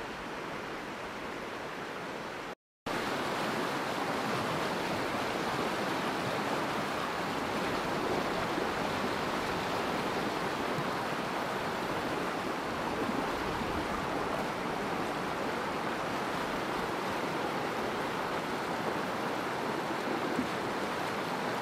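Shallow rocky river rushing over granite ledges in small cascades, a steady rush of white water. It drops out briefly about two and a half seconds in and comes back louder and fuller.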